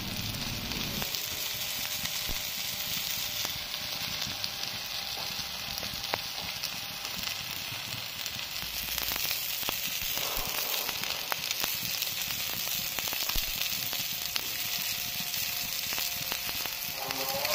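Fish pieces sizzling on a tawa griddle over low heat, frying without added oil in the fat they have released: a steady hiss with scattered small crackles.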